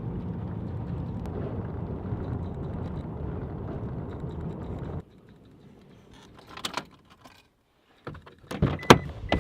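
Steady engine and road noise inside a moving Toyota Tacoma pickup's cab, cutting off abruptly about five seconds in. A few sharp clicks and knocks follow in the quiet.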